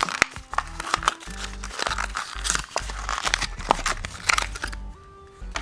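Plastic toy packaging crinkling and rustling as it is pulled off by hand, with many small sharp clicks, over background music. The handling stops near the end, leaving only the music.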